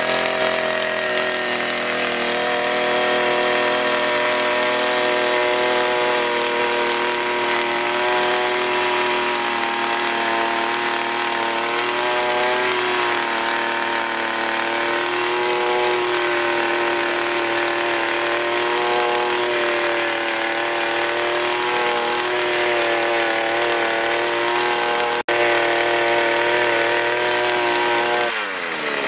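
Honda handheld earth auger's 52 cc two-stroke engine running steadily under throttle as the spiral bit bores into soil, its pitch wavering slightly with the load. Near the end the engine winds down.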